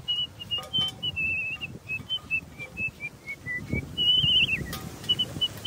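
A person whistling a tune: a run of short notes stepping down in pitch, then a longer wavering note about four seconds in, and a few more short notes.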